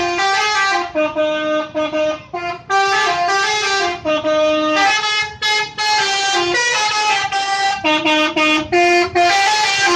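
Bus telolet horn, a multi-tone musical air horn, playing a quick tune of stepped notes with short breaks between phrases.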